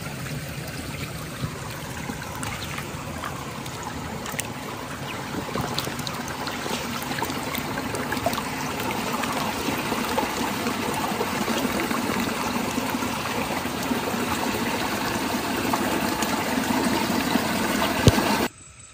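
Shallow mountain spring water trickling over stones in a steady flow. It grows a little louder and cuts off abruptly near the end.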